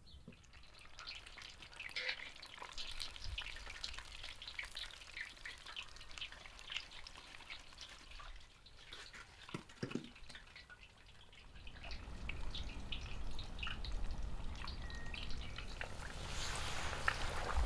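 Chicken pieces deep-frying in hot oil in a cast-iron cauldron: a steady sizzle full of small crackles and pops, which grows louder about twelve seconds in.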